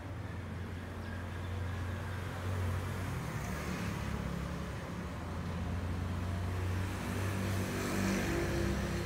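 A steady low engine-like rumble in the background, a little stronger near the end.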